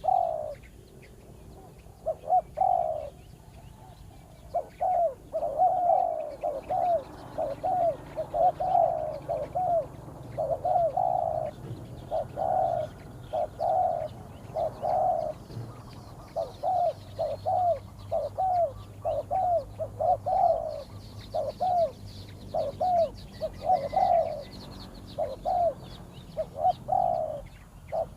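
Spotted dove cooing: short, pitched coo notes repeated in quick series with brief pauses between phrases.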